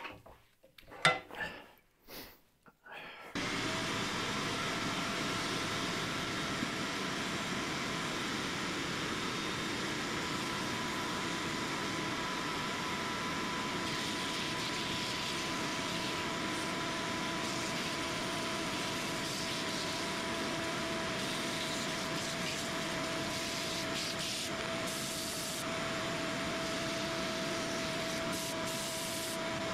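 Wood lathe starts running suddenly about three seconds in, after a few brief knocks, then runs steadily with a constant whine while a sanding sponge is held against the spinning wooden mallet blank, giving an even rubbing hiss.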